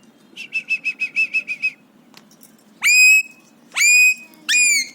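Alexandrine parakeet calling: a quick run of about a dozen short chirps, then three loud, shrill whistling calls that sweep up at the start.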